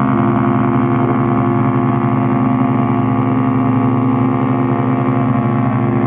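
RMS Queen Mary 2's ship's whistle sounding one long, steady, deep blast.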